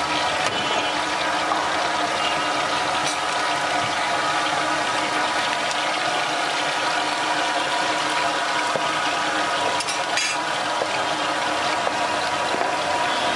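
Skewered marinated chicken pieces frying in shallow hot oil on a wide flat pan, a steady sizzle.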